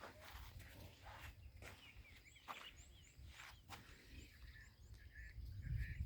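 Faint outdoor ambience: small birds chirping in a quick series of short high notes, over a low wind rumble on the microphone, with a few soft rustles.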